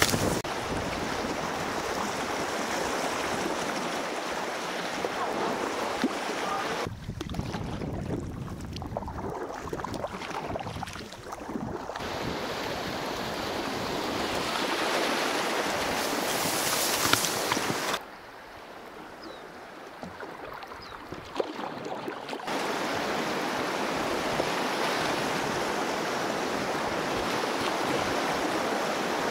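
River water rushing and splashing around an inflatable kayak running shallow rapids, with reeds brushing past the helmet-mounted microphone. Twice the rush drops abruptly to a quieter, duller sound for a few seconds before coming back.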